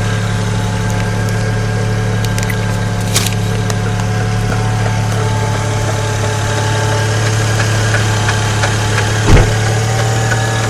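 2008 BMW 335i's N54 twin-turbo straight-six idling steadily with a knocking noise. A single louder thump comes about nine seconds in.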